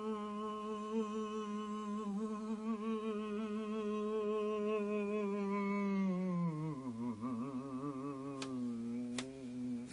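A man humming one long, steady note that slides down to a lower, wavering note about two-thirds of the way through, then holds it. Two faint clicks come near the end.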